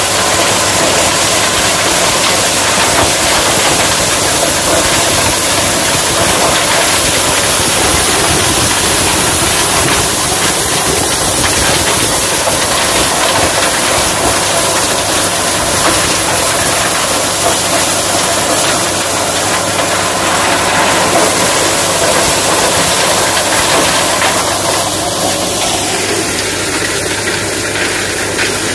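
Tractor-powered corn thresher running, a loud, steady mechanical noise with a hiss over the tractor engine. The hiss eases a little near the end.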